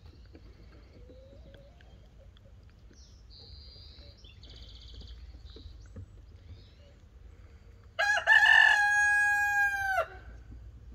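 A rooster crowing once, a loud call of about two seconds that holds a steady pitch and drops off sharply at the end, starting about eight seconds in.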